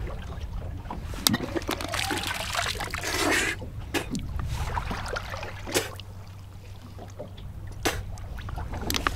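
Boat at sea: a steady low rumble with water sloshing, a louder noisy stretch about two to three and a half seconds in, and a few sharp knocks scattered through.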